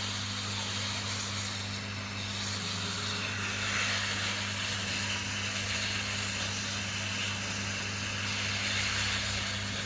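Hot air rework station blowing: a steady hum from its blower with an airy hiss that grows a little stronger a few seconds in, as it heats a 40-pin Z80 chip to soften the leftover solder.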